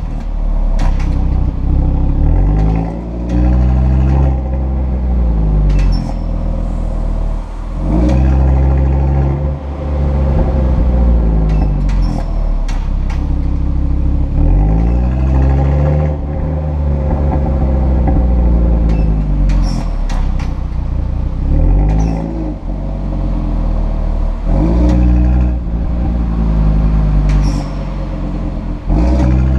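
Audi RS3 8V sedan's turbocharged five-cylinder engine through its RS sport exhaust, revving up and dropping back over and over as it accelerates through the gears. Short high squeaks come through now and then, the sound of the exhaust flaps squeaking.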